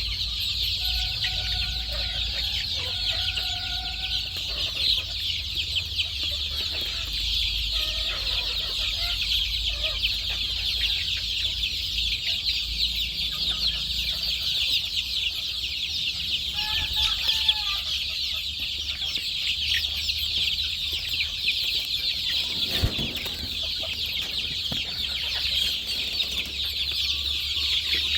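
A large flock of Sonali chickens calling all together: a dense, unbroken chatter of high peeps and clucks, with a few longer drawn-out calls standing out in the first few seconds and again a little past halfway, over a low steady hum.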